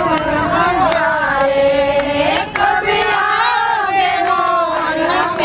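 A group of women singing a Hindi song together in unison, with long held, wavering notes, and hand claps keeping time.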